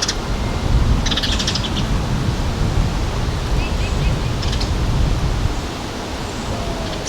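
Small songbirds chirping in two short, fast bursts of high notes, about a second in and again past the middle, with fainter chirps between. Over a steady low rumble of outdoor background noise that is the loudest thing throughout.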